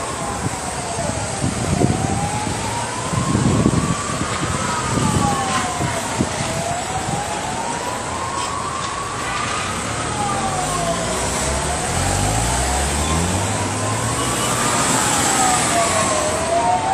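Emergency-vehicle siren wailing, its pitch slowly rising and falling about every five seconds, over street traffic noise. A vehicle engine revs up about twelve seconds in.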